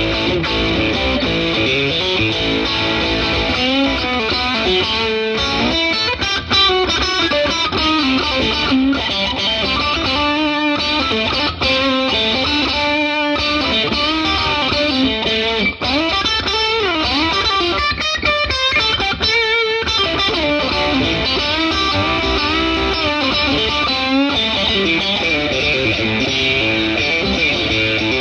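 Dean Zelinsky Private Label Tagliare maple-top Strat-style electric guitar played through a Peavey Classic 30 tube amp with mild overdrive, lead lines and runs with bent notes.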